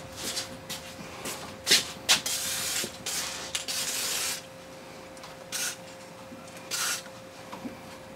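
Aerosol Tri-Flow lubricant spraying in short hissing bursts onto a stiffened part of the outboard's carburettor linkage, the longest burst about two seconds, starting a little over two seconds in. Two sharp clicks come just before it.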